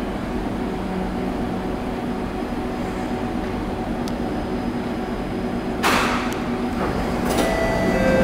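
A C151 metro train stands humming at the platform, then its doors and the platform screen doors slide open. A sudden rush of noise comes about six seconds in, a second one comes about a second later, and then a steady door chime tone sounds near the end.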